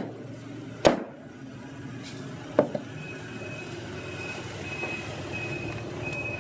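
A cleaver chopping roast pig on a wooden block: three sharp strikes in the first three seconds. From about halfway, a high electronic beep repeats about one and a half times a second.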